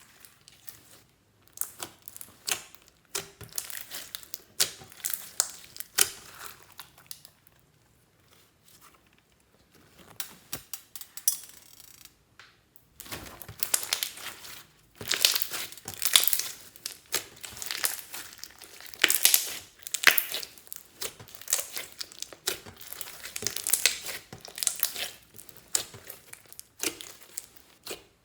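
Slime being squeezed and kneaded by hand close to the microphone, a dense run of small clicks, pops and squelches. There are two spells of handling, a quieter gap in the middle, and louder working from about halfway on.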